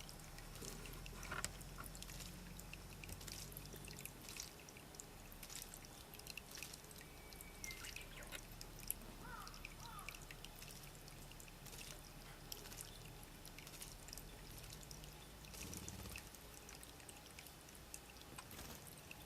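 Small birds giving a few short, faint chirps about eight and ten seconds in, amid many faint scattered clicks and ticks.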